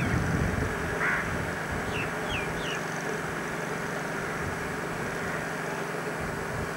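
Outdoor ambience on a camcorder microphone: a steady hiss of wind and distant traffic, with a low rumble of wind on the mic at the start. A bird calls once about a second in, then three short falling chirps follow in quick succession.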